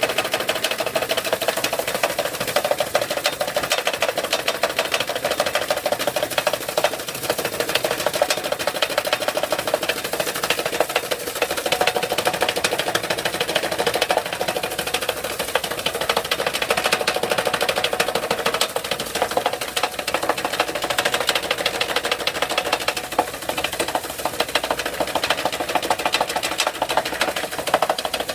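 iRobot Looj gutter-cleaning robot running along a metal gutter: a steady motor drone with a fast, even rattle from its drive and spinning auger working through leaves.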